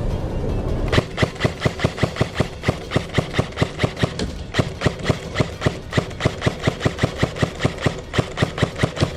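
Airsoft gun firing a steady, rapid string of sharp shots, about six a second, starting about a second in.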